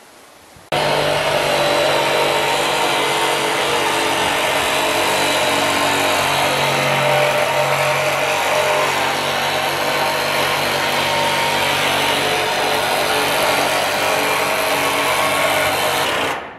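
Power cutting tool running steadily as it cuts a ring section for a garden bed, a loud even motor tone over a hiss. It starts abruptly about a second in and stops just before the end.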